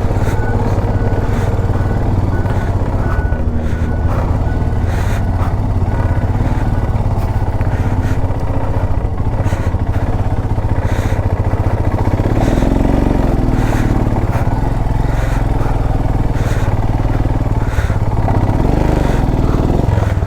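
Motorcycle engine running under way on an off-road mountain trail, with repeated short knocks and rattles from riding over rough ground.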